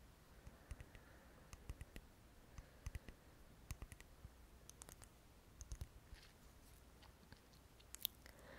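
Faint, scattered clicks and light taps of small products from a pouch being handled, a few a second.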